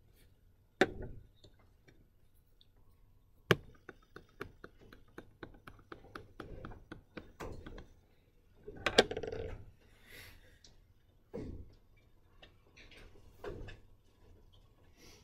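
Quiet classroom room sound with scattered desk noises: two sharp knocks, a run of light taps and ticks, and a louder burst of shuffling noise about nine seconds in.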